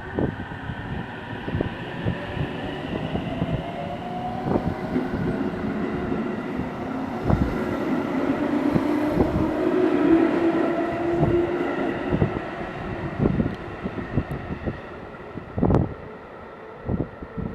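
Electric train running past on the Tokaido Main Line: wheels clacking over rail joints, with whining tones that glide in pitch. It grows louder to a peak about ten seconds in, then fades.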